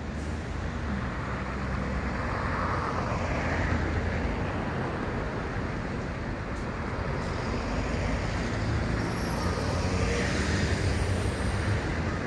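City road traffic: vehicle engines running with a steady low rumble under tyre and road noise, swelling slightly as vehicles pass.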